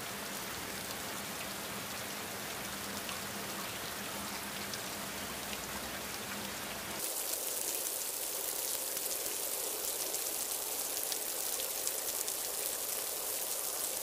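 Rain falling on floodwater and surfaces, a steady hiss. About halfway through it turns brighter and a little louder, with close, crisp patter of individual drops.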